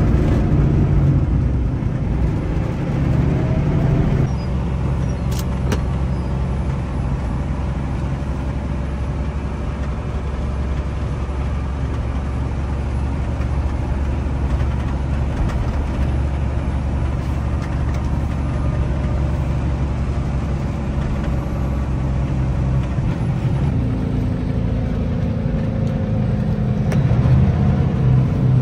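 Semi truck's diesel engine and road noise heard from inside the cab, a steady low drone as the rig comes down a mountain grade, with the engine note changing about four seconds in and again near the end.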